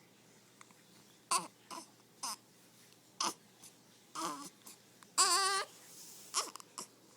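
A baby hiccuping: a series of short, sudden vocal catches, mixed with brief fussy cries. The loudest is a longer, wavering cry about five seconds in.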